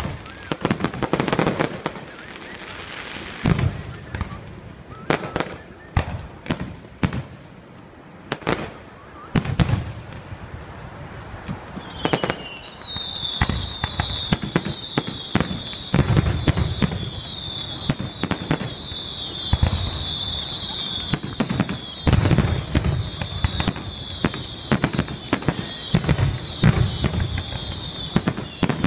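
Aerial fireworks shells bursting in quick succession, sharp booms and cracks one after another. From about twelve seconds in, a dense layer of high-pitched whistling joins, and the bursts come thicker and louder.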